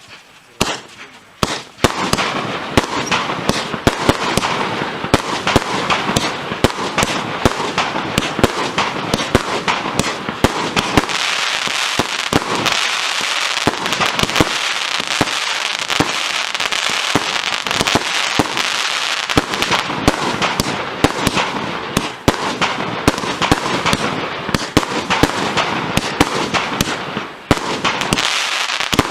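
A 100-shot, 30 mm (1.2-inch) consumer firework cake firing: a few separate shots at first, then, about two seconds in, shots and bursts following so closely that they run together into one continuous dense barrage.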